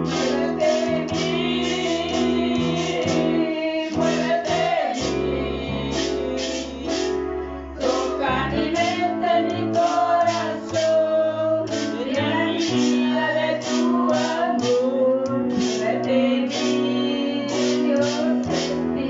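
A woman singing a worship song, accompanied by an electronic keyboard playing sustained chords over its built-in drum rhythm, with a steady beat throughout.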